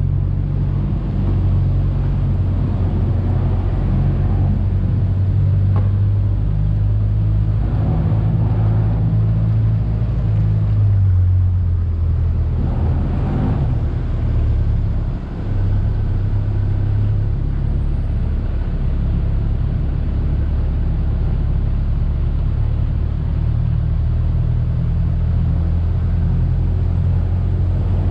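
Off-road 4x4's engine running steadily while the vehicle is driven, a low drone with road noise. The pitch of the drone shifts around the middle, and the level dips briefly about halfway through.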